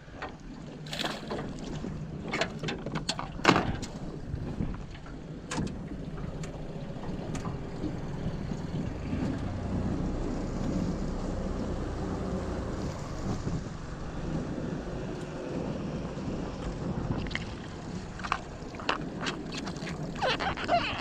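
Wind and water noise around an aluminum jon boat, with scattered knocks and clatter of gear against the hull, the loudest about three and a half seconds in and a few more near the end.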